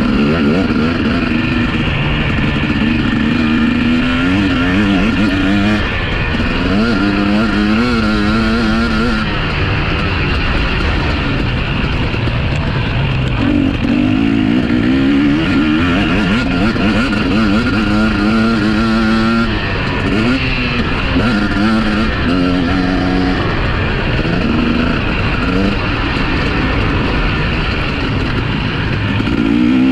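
Several motocross bikes running on the track at once, their engines revving up and dropping back again and again as they accelerate and shift.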